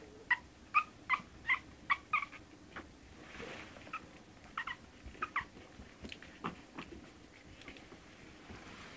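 Month-old Shih Tzu puppies squeaking: short high-pitched squeaks and whimpers, about eight in quick succession in the first three seconds, then a few scattered ones.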